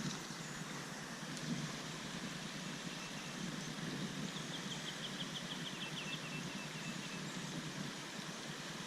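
Steady rushing outdoor background noise, with a short high trill of rapid, evenly spaced chirps from about four to six seconds in.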